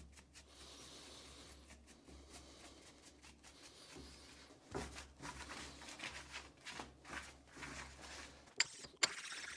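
Coborn Type 1 power scraper running with a steady low hum and irregular short strokes as its blade scrapes a cast iron vise base, breaking up the surface on the first pass. The hum cuts off near the end, followed by two sharp clicks.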